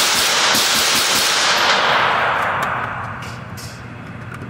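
Rapid string of gunshots echoing in an indoor shooting range, fading away about two and a half seconds in.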